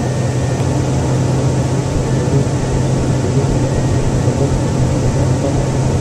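Rolls-Royce Spey turbofans of a BAC 1-11 running steadily while the jet taxis, heard inside the cabin beside the rear-mounted engine: an even low drone under a rushing hiss.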